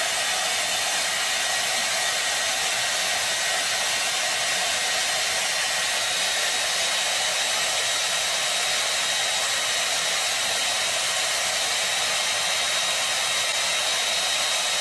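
Hand-held hair dryer running steadily: a constant rush of blowing air with a thin, steady high whine in it.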